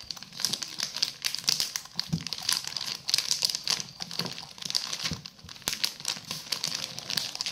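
Plastic wrapper crinkling and rustling in irregular crackles as it is pressed and rolled around a rice roll (kimbap).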